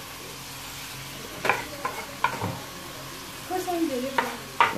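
Chicken chilli sizzling in a frying pan over a low flame, a steady hiss. A spoon or spatula knocks and scrapes against the pan a few times as the chicken is stirred.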